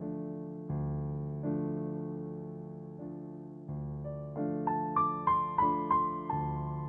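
Background piano music: slow chords that ring out and fade, then a quick run of higher notes about two-thirds of the way through.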